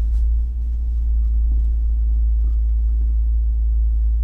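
Steady low rumble of engine and road noise inside a truck cab while driving.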